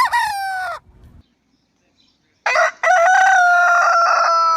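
Rooster crowing: a short call at the start, then one long, slightly falling crow beginning about two and a half seconds in.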